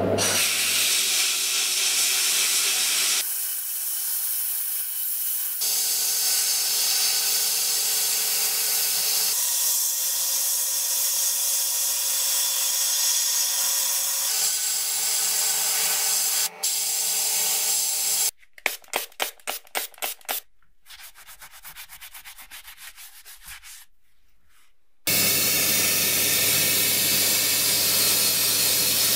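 Sandblast cabinet blasting a rusty steel plate: a loud, steady hiss of air and grit, heard in several stretches with sudden changes between them. Just after the midpoint comes a quick run of about eight short pulses, then a quieter patch. From about 25 s a powder-coating spray gun hisses steadily over a low hum.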